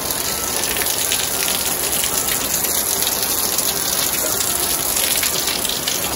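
Heavy rain falling steadily, a dense hiss of many small drop hits.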